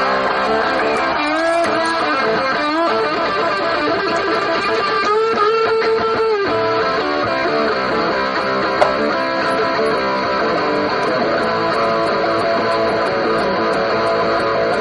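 Background music led by electric guitar, with a few bending, gliding notes in the first seconds and a held high note around the middle.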